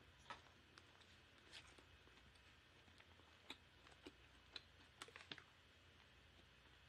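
Near silence with a dozen faint, scattered clicks of someone eating: chewing mouth sounds and chopsticks taking up rice.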